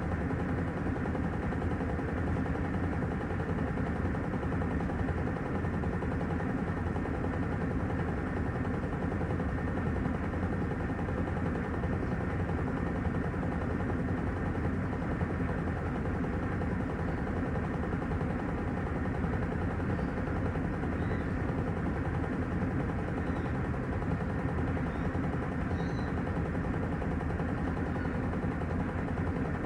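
Panasonic top-loading washing machine running its wash cycle, with a steady churning noise of water and laundry in the drum.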